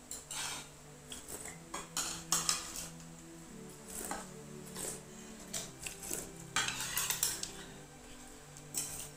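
A metal spoon clinking and scraping against a ceramic bowl, in irregular taps as the last of a meal is spooned up.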